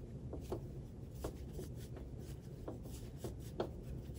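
Crochet hook and super bulky yarn being worked by hand through a puff stitch: faint rustling and rubbing of yarn over the hook, with soft irregular ticks about twice a second as loops are wrapped and pulled through.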